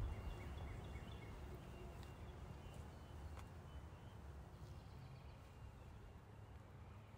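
Faint outdoor ambience: a low wind rumble on the microphone with a few faint bird chirps.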